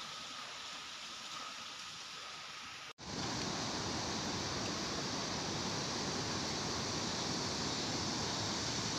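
Steady rushing noise of flowing floodwater. It cuts off abruptly about three seconds in and gives way to a louder, hissier rush of water.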